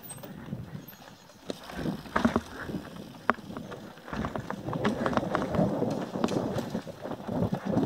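Mountain bike descending a dirt forest singletrack: tyre rumble and frame rattle with frequent sharp clicks and knocks, getting louder about halfway through as the pace picks up.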